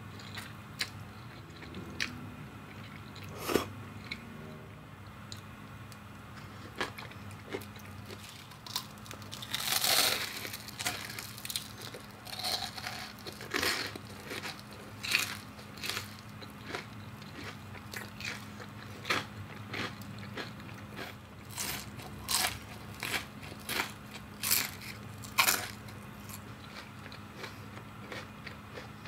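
Close-miked crunching and chewing of battered, deep-fried enoki mushrooms: a string of sharp, crispy bites and chews, with a dense loud burst of crunching about ten seconds in and more loud crunches near the end.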